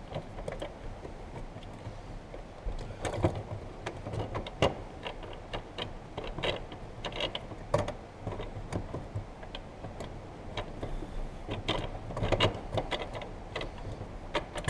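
Irregular clicks and knocks of hard parts being worked by hand as the fuel pump assembly is held down in the tank and its retaining ring is fitted back on. A few louder knocks stand out among the light clicking.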